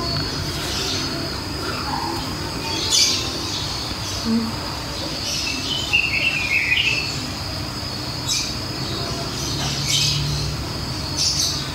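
Night-time outdoor ambience: a steady high drone with short, sharp animal calls every second or two, and one longer wavering call about six seconds in.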